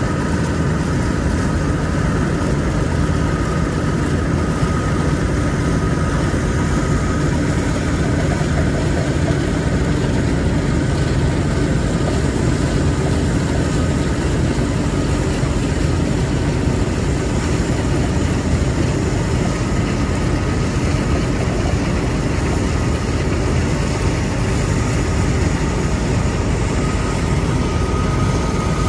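Massey Ferguson 860 combine harvester running steadily while cutting and threshing a crop: a constant engine and machinery drone with a faint steady whine.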